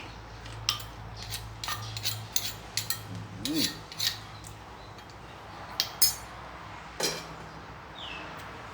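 Utensils clinking and scraping against a dish while a som tum salad is mixed: a run of sharp, irregular clinks, the loudest about six seconds in.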